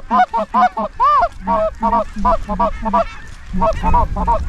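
Goose honking: a rapid run of short clucking honks, about four a second, with one longer drawn-out honk about a second in and a brief pause past the three-second mark.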